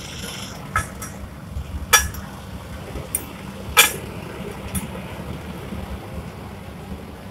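Meltwell gas melting furnace burning, with a steady low rumble from the flame, and a few sharp metallic clinks about 1, 2 and 4 seconds in.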